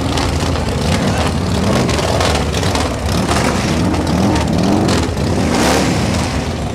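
Motorcycle engines running as several custom choppers ride slowly past one after another, with a low rumble and the revs rising a few times in the middle as riders open the throttle.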